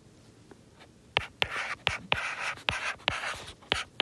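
Stylus writing on a tablet screen: the tip taps and scratches through short strokes as numbers are handwritten, starting about a second in.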